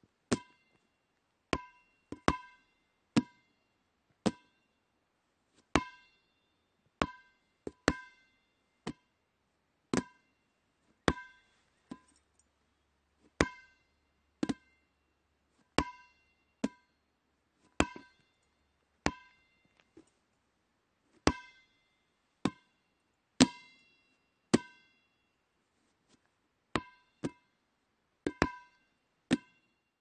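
Dodgeball bouncing, one sharp bounce at a time with a short ringing tone after each. The bounces come about once a second at uneven spacing and vary in loudness, now and then two in quick succession.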